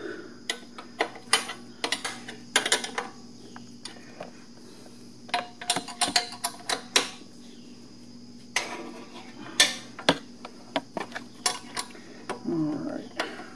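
Ratchet wrench clicking in about five short bursts as it tightens the engine-guard bolts on a motorcycle, with metal knocks and the wrench grinding against the exhaust pipe.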